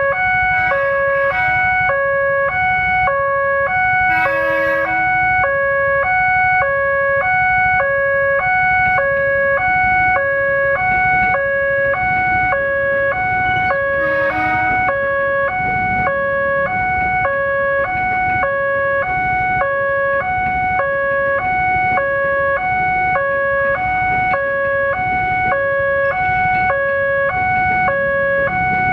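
Railway level crossing warning alarm sounding without a break: an electronic two-tone signal alternating between two pitches, about one high-low pair a second, over a low rumble of traffic.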